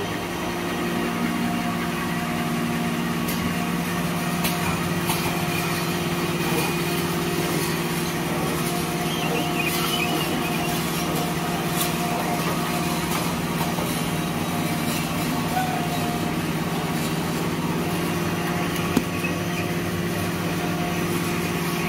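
Automatic tissue and hand towel film packing machine line running: a steady mechanical drone of motors, rollers and conveyors, with a few light clicks and one sharp click about nineteen seconds in.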